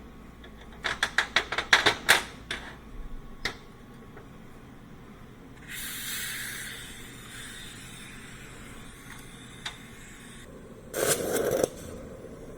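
A quick run of about ten sharp metallic clicks, then a steady spray-like hiss lasting about five seconds. A short, louder burst of rattling follows near the end.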